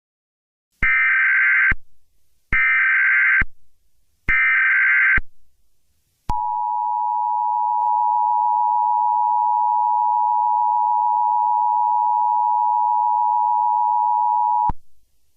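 Emergency Alert System activation tones: three short buzzing data bursts of the SAME header, each under a second, then the two-tone EAS attention signal held steady for about eight seconds before it cuts off.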